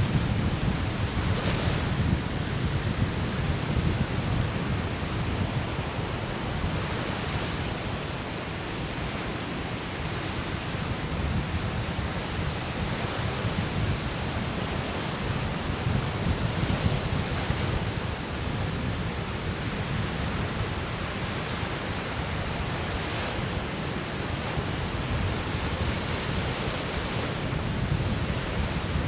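Lake Michigan waves washing onto a sandy beach, a brighter rush swelling every five or six seconds, under a steady low rumble of wind buffeting the microphone.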